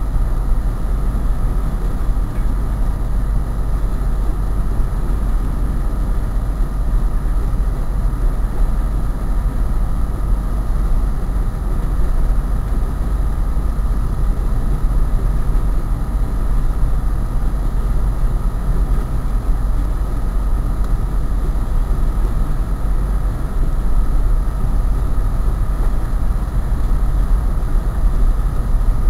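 Steady low rumble of a train running past, loud and unbroken throughout.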